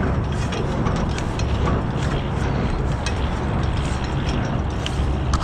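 A diesel semi truck idling with a steady low rumble, with irregular light clicks and scuffs over it.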